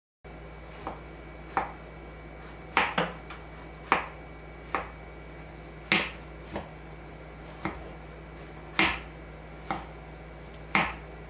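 Kitchen knife slicing shiitake mushrooms on a wooden cutting board: about a dozen separate knocks of the blade on the board, unevenly spaced, over a faint steady hum.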